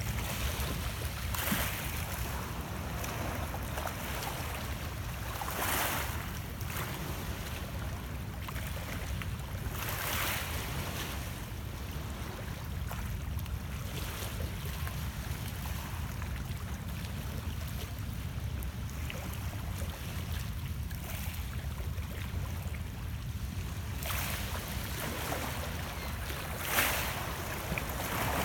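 Small lake waves lapping and splashing against shoreline rocks, with a steady low wind rumble on the microphone. Soft splashes come every few seconds, the loudest just before the end.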